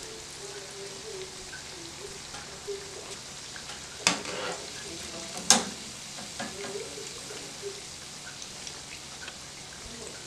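Saltfish fritters deep-frying in oil, a steady sizzle. About four and five and a half seconds in come two sharp knocks, the second louder, as a wire-mesh skimmer goes into the pan.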